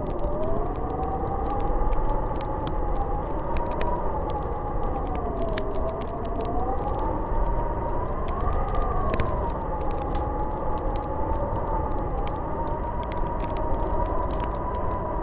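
Snowstorm wind howling: a wavering moan that slowly rises and falls in pitch over a steady rush of wind, with faint scattered ticks.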